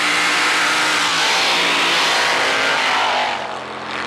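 Open-frame ice drag-racing buggy with an exposed engine running at full throttle as it accelerates away down the track. It is loud and steady, then drops off about three and a half seconds in as it pulls away.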